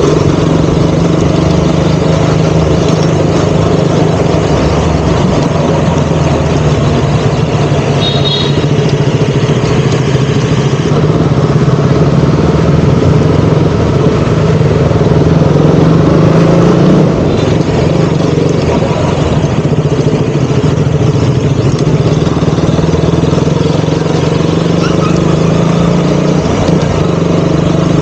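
KTM Duke 200's single-cylinder engine running at a steady pace under road and wind noise, the engine note lifting slightly about two-thirds of the way through before settling again. A brief high beep sounds about eight seconds in.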